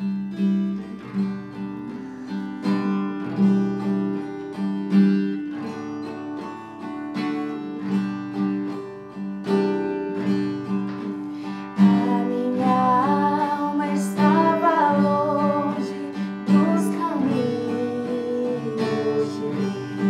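Acoustic guitar strumming a hymn introduction, with female voices joining in singing about twelve seconds in.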